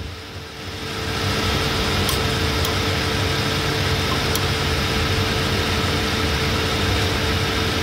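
Steady mechanical hum of running machinery with one constant mid-pitched tone and a low rumble, swelling over the first second and then holding level.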